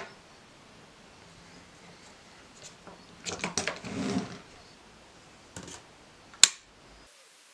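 Plastic clatter and rubbing as the two halves of a cordless drill's plastic housing are pulled apart, in a short cluster a few seconds in. One sharp click comes near the end.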